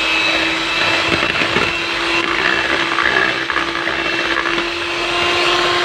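Electric hand mixer running at full speed, its beaters whisking raw eggs in a bowl to a froth: a steady motor hum under an even whirring noise.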